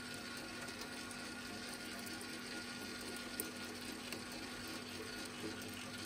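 Spiral dough mixer running with a steady hum as its spiral hook churns a very wet, overhydrated dough in the steel bowl.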